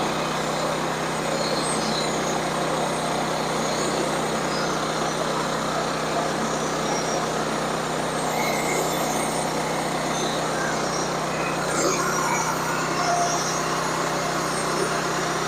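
Sawmill running steadily with an engine hum under the even noise of the saw cutting through a log.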